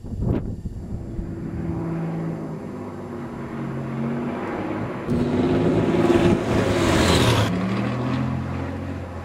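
Single-engine Cessna's piston engine and propeller flying low past, growing louder as it approaches, with a rush of noise as it comes closest about six to seven seconds in. Its pitch then drops as it passes and it fades away.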